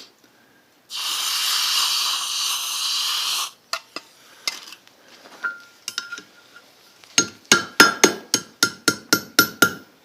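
Hot steel hissing for about two and a half seconds as it is dipped into a can of water to cool the curl. A few light taps follow, then a quick run of about a dozen ringing hammer blows, about five a second, as the S hook is shaped over the anvil horn.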